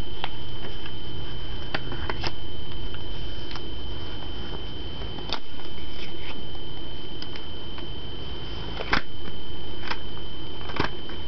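Scattered light clicks and rustles of a CD booklet and plastic jewel case being handled and put away, over a steady high-pitched whine.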